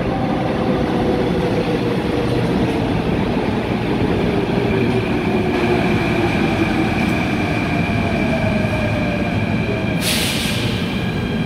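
Electric metro train pulling into an underground station and braking, its motor whine falling slowly in pitch as it slows over a steady rumble, with a steady high tone joining about halfway. A short, loud hiss breaks out about ten seconds in as the train nears its stop.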